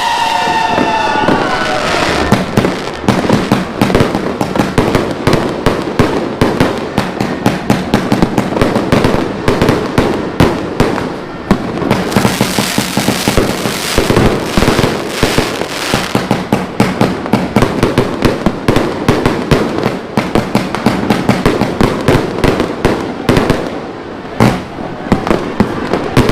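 A 188-shot fireworks cake firing a dense barrage of shots and bursts, several a second. Whistles glide at the start before the bangs take over.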